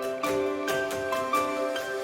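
Background music: a light melody of plucked or struck notes in a steady rhythm.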